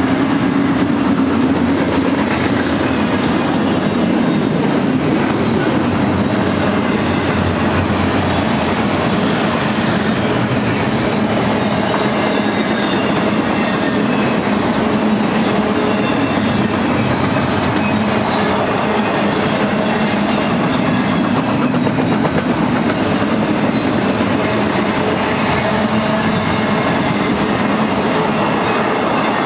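BNSF intermodal freight train's double-stack well cars and trailer cars rolling past at speed, a loud, steady noise of wheels on rail that never lets up.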